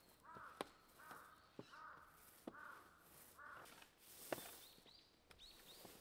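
A bird calling five times in a row, about a second apart, with sharp knocks in between, the loudest about four seconds in. Short high chirps of a smaller bird come in near the end.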